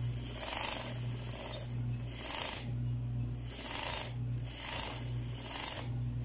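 Electric sewing machine stitching in short runs, its motor hum starting and stopping about once a second as the seam is fed through, sewing with elastic garter thread.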